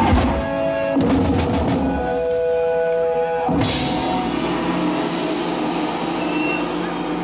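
Live band music with a drum kit: the drumming gives way to held chord notes, and a sudden hissing crash about three and a half seconds in slowly dies away over a steady low sustain.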